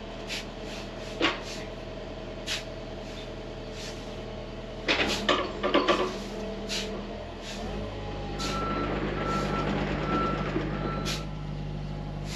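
Diesel engine of heavy earthmoving equipment running, with sharp metallic clanks, loudest in a cluster about halfway through. The engine revs up about two-thirds of the way in, and a backup alarm then beeps repeatedly for about three seconds.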